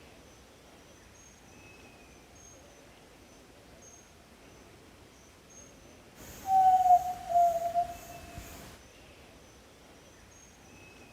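Yellow-legged tinamou (jaó-do-sul) giving one low, hooting whistle that falls slightly in pitch, about six and a half seconds in and lasting about a second and a half. Faint insects chirp in the background throughout.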